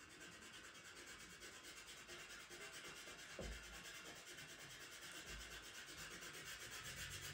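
Faint, scratchy rubbing of a pastel pencil held on its side and stroked back and forth on sanded PastelMat paper, at about four strokes a second. A soft bump sounds about three and a half seconds in.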